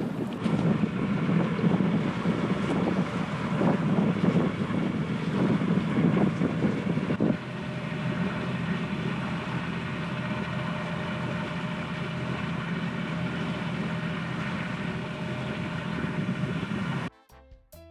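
Sailboat under way: wind buffeting the microphone over the rush of water along the hull. The sound changes to a steadier, quieter run about seven seconds in, and cuts off suddenly near the end.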